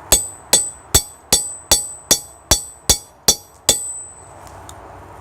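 Hand hammer striking hot titanium on an anvil, ten quick, evenly spaced blows with a bright metallic ring, about two and a half a second, stopping a little under four seconds in.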